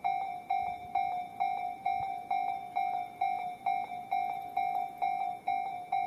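Japanese level crossing's electronic warning bell ringing, an even 'kan-kan' about twice a second: the signal that a train is approaching and the crossing is closed.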